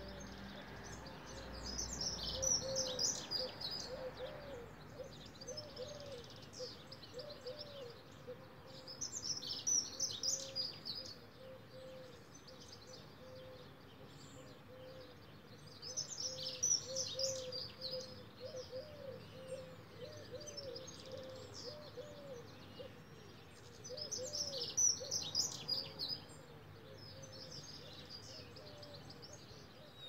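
Dawn chorus: songbirds such as blackbirds and robins sing loud high phrases about every eight seconds, over a steady run of low, quickly repeated cooing from stock doves.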